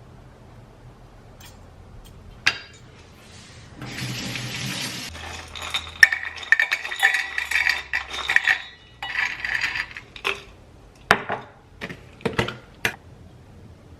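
Kitchenware being handled: a short hiss about four seconds in, then a run of clinking and scraping of utensils against dishes, and several sharp knocks near the end.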